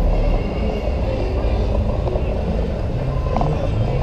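Steady low rumble of wind and riding noise on a bicycle-mounted camera's microphone, with faint street background.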